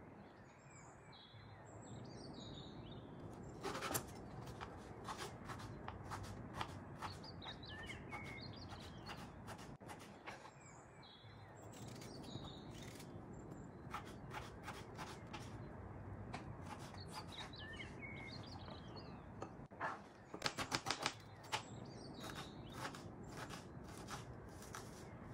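Knife chopping raw potato on a wooden cutting board: a run of quick, sharp taps, with a fast burst of strikes about twenty seconds in. Birds chirp faintly in the background.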